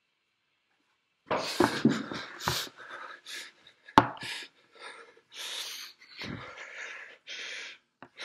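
Panicked heavy breathing and gasps coming through a video call, in uneven bursts that start about a second in, with a sharp click about four seconds in.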